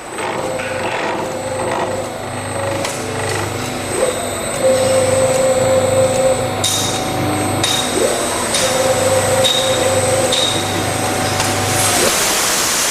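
Simco LSC-2150 CNC spring lathe running through its cycle: a steady low hum with motor whines that rise in pitch twice and then hold, several short high tones in between, and a burst of hiss near the end.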